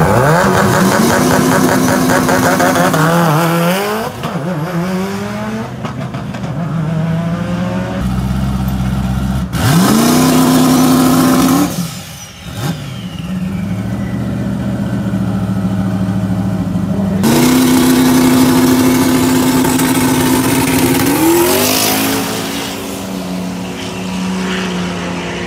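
Twin-turbo 5.3-litre LS V8 in a Mitsubishi 3000GT revved up and held at steady revs at the line three times, easing off in between, as launches are aborted when the red light keeps lighting. The revs climb again near the end.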